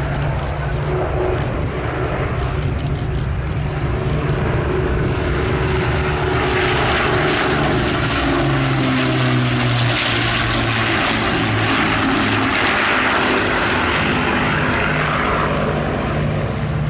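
Avro Lancaster's four Rolls-Royce Merlin engines and propellers running in a low flypast. The sound swells as the bomber passes overhead about halfway through, and the engine note drops in pitch as it goes by.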